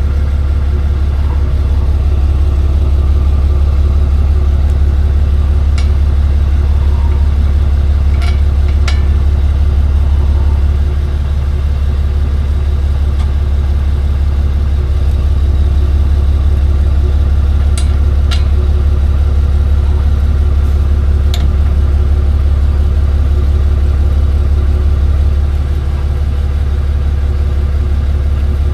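Tow truck's engine running with a steady low drone that eases off slightly twice, with a few faint scattered clicks.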